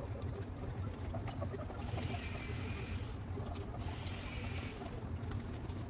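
Background room noise: a steady low hum, with a soft hiss that swells twice.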